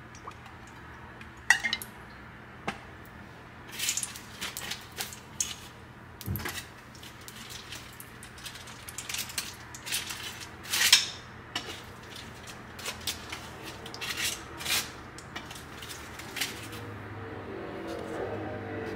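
Kitchen utensils knocking and clinking against pots, pans and dishes: a string of separate sharp knocks and clatters, a few seconds apart.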